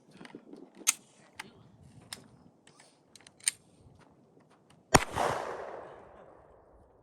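A single loud gunshot about five seconds in, its echo dying away over the next two seconds, after several fainter sharp cracks.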